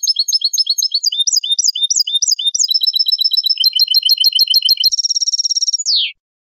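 A finch singing goldfinch-style song in the Málaga style (a tutor song for training young goldfinches and mules): rapid repeated high chirps, then varied phrases and quick note runs, a buzzy trill about five seconds in, and a falling note before the song stops.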